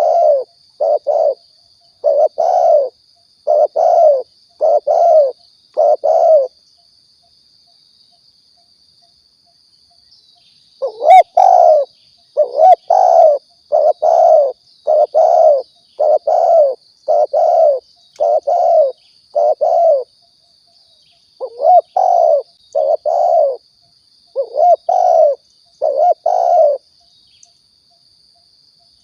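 Spotted dove (tekukur) cooing: runs of low, rounded coo notes, a pause of about four seconds from roughly 7 to 11 seconds in, then two more runs. A faint steady high-pitched tone sits underneath throughout.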